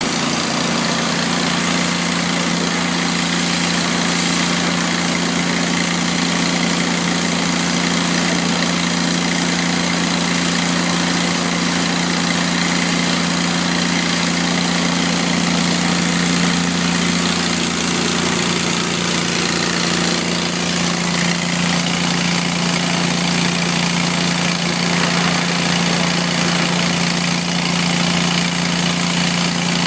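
Pressure washer running steadily: a constant motor or pump hum under the loud, even hiss of the water jet spraying.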